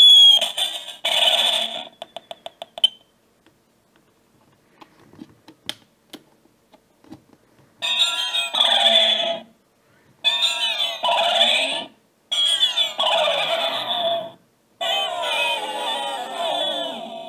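Circuit-bent sound-effects gravestone playing glitched, garbled sound clips through its small speaker, with nothing below the midrange. A burst at the start gives way to scattered clicks and pops, then four bursts of warbling sound of about two seconds each, broken by short gaps.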